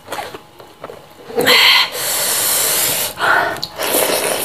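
Close-miked eating by hand. About a second and a half in there is a loud wet mouth noise, then a steady hissing breath is drawn in through the mouth for about a second, typical of cooling the mouth against spicy chili sambal. Shorter chewing and mouth noises follow.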